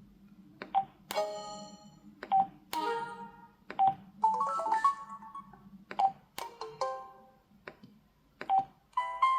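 Samsung Anycall SCH-W570 mobile phone sound effects: about six key presses, each a click with a short keypad beep. Most are followed by a brief electronic chime, with a different chime each time. A longer electronic melody begins near the end.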